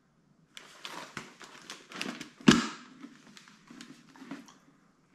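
Handling noise from a Schuberth C5 modular motorcycle helmet with an action camera mounted on it being turned over in the hands: scattered rustles and light taps, with one louder knock about two and a half seconds in.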